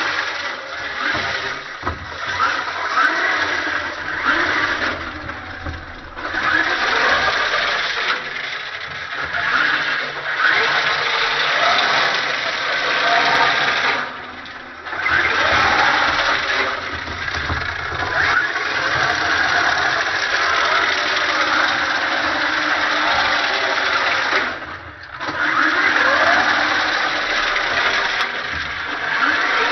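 RC drift car running, its motor pitch rising and falling with the throttle over a dense scrubbing noise. It drops away briefly twice.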